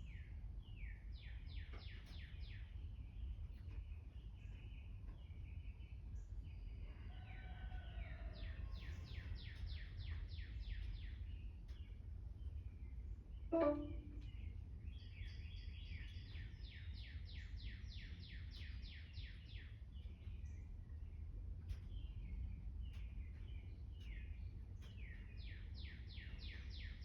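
Songbirds singing: phrases of rapidly repeated notes, several per second, over a steady low hum. A brief louder call or sound comes about thirteen and a half seconds in.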